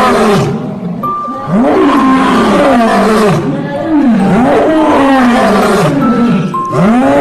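A large animal giving a series of loud, deep calls, each rising and then falling in pitch, about six in all, over background music with held bell-like notes.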